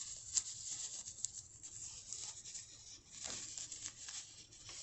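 Faint rustling and rubbing of a winter glove's fabric as it is handled and turned inside out, with a few light clicks.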